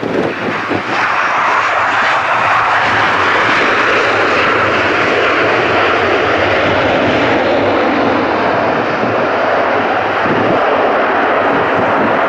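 Boeing 737's CFM56 jet engines running up in reverse thrust during the landing roll on a wet runway. It is a loud, steady roar that rises over the first second, then holds.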